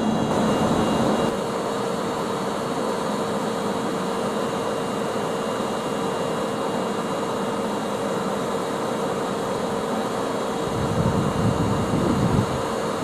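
Steady mechanical running noise of a railway locomotive standing at the platform, with a steady hum tone that sets in about a second in. Wind buffets the microphone near the end.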